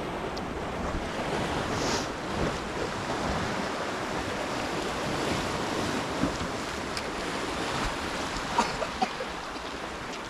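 Ocean surf washing steadily against the shore, with wind on the microphone. A few short clicks come near the end.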